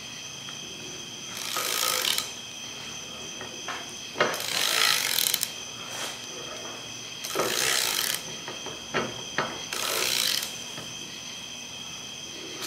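Ratchet wrench on a spindle-nut socket being worked in four rasping strokes, with small clicks between, while the hub and brake rotor are turned by hand. The inner spindle nut of a Dana 60 front hub is being snugged up to seat the wheel bearings.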